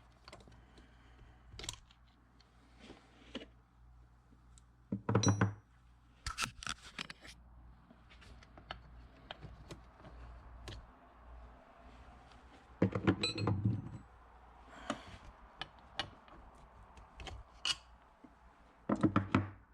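Honda H22 rocker arms being lifted out of the cylinder head and set down one by one: scattered light metallic clicks and clinks, with louder clattering clusters about five, thirteen and nineteen seconds in.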